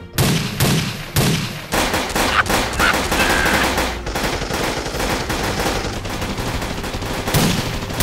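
Rapid gunfire sound effects: shots close together for the first few seconds, running into a continuous rattle like machine-gun fire.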